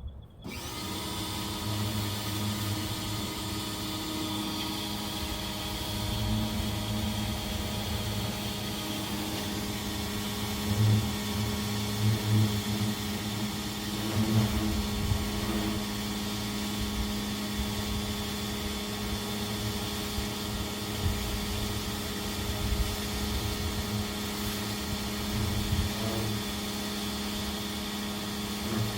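GreenWorks 1700 psi electric pressure washer starting up and running steadily: a constant motor and pump hum with a hiss of spray over it.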